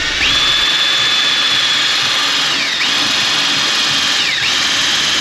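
Handheld electric power tool, likely a drill, whining at full speed. Its pitch drops sharply and recovers twice, as if briefly loaded.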